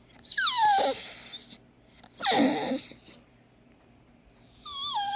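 Dog whining: three high-pitched calls, the first and last sliding down in pitch and the middle one rougher and noisier.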